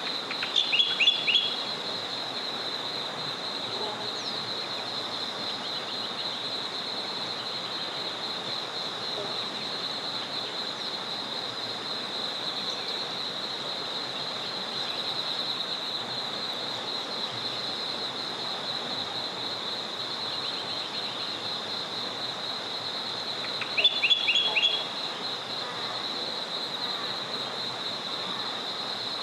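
Forest river ambience: a small river's steady flowing hiss under a continuous high, fast-pulsing trill. A bird breaks in with a short, loud burst of three or four quick high notes about a second in, and again near the end.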